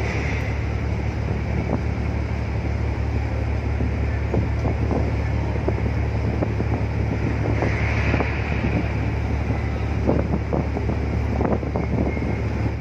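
Steady low rumble of a large container ship's engines as it passes close by, with wind buffeting the microphone. The audio cuts off suddenly at the end.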